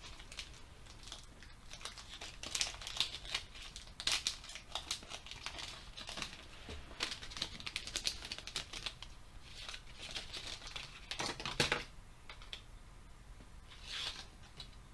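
Foil wrapper of a Pokémon card booster pack crinkling and tearing as it is worked open by hand: a run of irregular crackles, with louder bursts now and then.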